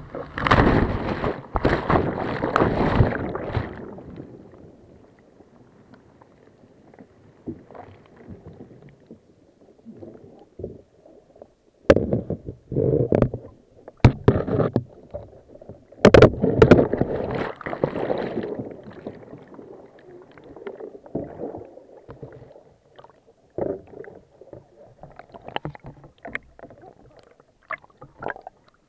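A surf kayak wiping out in a breaking wave: a loud rush of whitewater over the deck for the first few seconds. Then muffled underwater gurgling and churning, broken from about twelve seconds in by sharp knocks and surges as the capsized kayak is tumbled in the surf.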